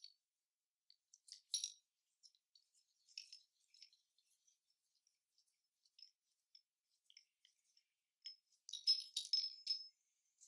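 Chromed metal parts of an Apeks US4 scuba regulator first stage clicking and clinking together as they are handled and fitted. The taps are faint and scattered, with a quick, louder run of clinks near the end.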